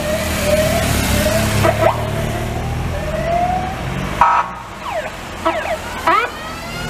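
Police sirens on passing police vehicles: a siren tone slides up slowly again and again over engine rumble. About four seconds in, a short loud tone sounds, followed by three quick falling siren chirps about half a second apart, and a long rising wail starts near the end.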